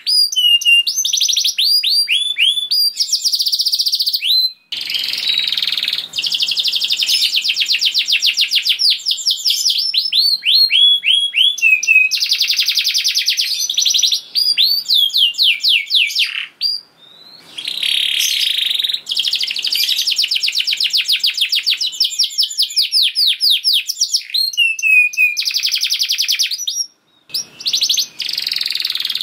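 Canary singing a long, fast song of rolling trills and rapid series of repeated downslurred whistled notes, broken by short pauses about five seconds in, around seventeen seconds, and near the end.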